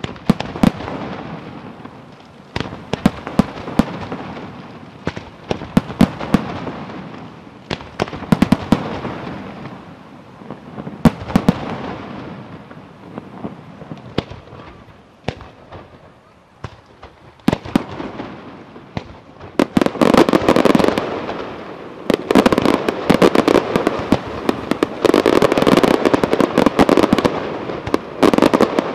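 Scarsella Fireworks display shells bursting overhead: a run of sharp separate bangs, thinning to a lull past the middle, then from about two-thirds of the way through a dense, continuous barrage of bangs and crackling.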